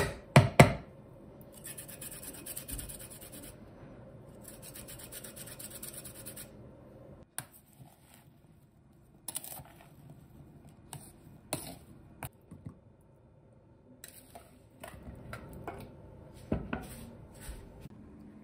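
A lemon being zested on a plastic hand grater over a plastic mixing bowl: a few sharp knocks at the start, then a few seconds of steady scraping strokes. After a pause come scattered clicks and knocks of a metal spoon stirring sugared berries in the bowl.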